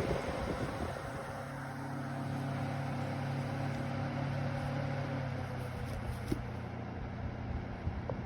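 Steady low mechanical hum, like a running motor, with a couple of faint knocks near the end.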